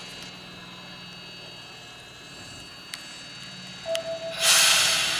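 Chichibu Railway 7500 series electric train (ex-Tokyu 8090 series) standing with a low steady hum and faint high whine; about four seconds in a short beep sounds, then a loud burst of compressed-air hissing starts and slowly fades, as the train readies to depart.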